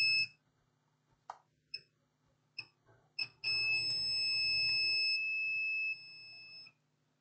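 Digital multimeter's continuity beeper on a laptop motherboard: a short high-pitched beep, a few brief chirps as the probes touch, then a long steady beep of about three seconds while a probe rests on a power coil. The beep is the meter signalling low resistance to ground as the coils are checked for a short.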